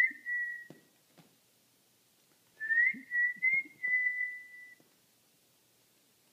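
Two whistled notes, each opening with a short rising glide and then holding one steady pitch; the first is brief, the second, about two seconds in, lasts about two seconds with small wavers. A few faint soft knocks sound underneath.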